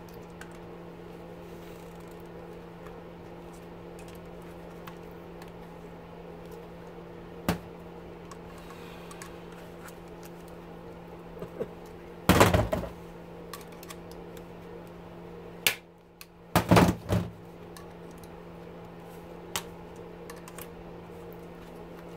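Metal clicks and clatter from an electric motor's stator being worked apart by hand with pliers: a few sharp clicks, a loud clattering scrape about twelve seconds in and another burst around seventeen seconds, over a steady low hum.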